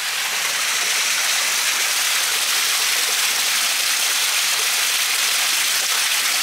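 Heavy rain falling steadily, with water spilling over the side of a full plastic rainwater tank. The rush grows a little louder about a second in, then holds steady.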